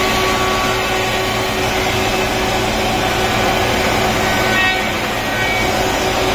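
Industrial four-sided wood planer (moulder) running: a steady, loud machine noise with several constant tones.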